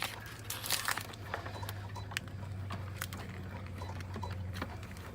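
Blue shipping tape being peeled off a new printer's plastic body, with scattered crinkles and sharp clicks from the plastic being handled. A low steady hum runs underneath.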